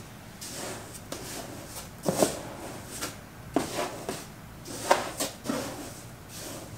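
Cat litter being scooped out of a litter box: rasping scrapes of litter grains against the scoop, with several sharp knocks of the scoop against the box.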